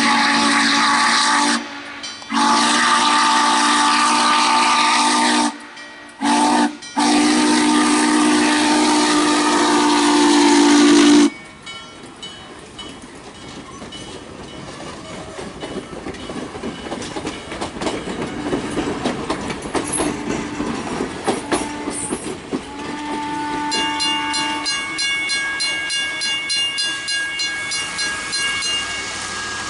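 Norfolk & Western J class 611's steam whistle blowing the grade-crossing signal: two long blasts, a short one, then a long one. After it, the locomotive and its passenger cars roll past with a rumble and clickety-clack of wheels on the rails that grows louder.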